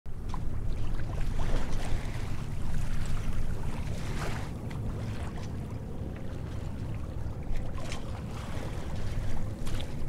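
Wind buffeting the microphone in a low rumble, with choppy sea waves washing onto a stony shore.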